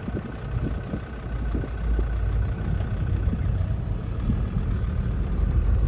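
A 4x4 jeep driving along, its engine and tyre noise making a steady low sound that grows slowly louder.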